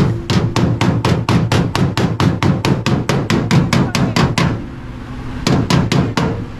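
Hammer rapidly beating a car's sheet-metal body panel, about four blows a second. The blows stop about four and a half seconds in, then a few more follow, over a steady low hum.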